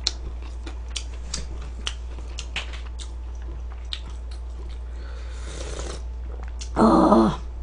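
Close-miked mukbang eating: small mouth and ladle clicks, then a sip of hot pork-bone soup broth slurped from a metal ladle about five seconds in, followed near the end by a short vocal sound that falls in pitch.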